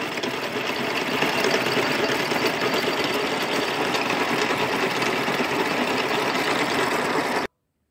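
Milling machine's face mill cutting across the deck of an aluminium cylinder head, a steady, even machining noise that stops abruptly near the end. The cutter is skimming the head flat after it was overheated, on a pass taking off about a tenth of a millimetre.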